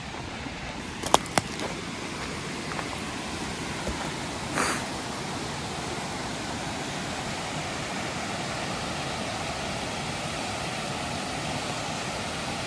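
Waterfall rushing in a steady, even hiss of falling water, with two sharp clicks about a second in and a brief scuff a little before five seconds.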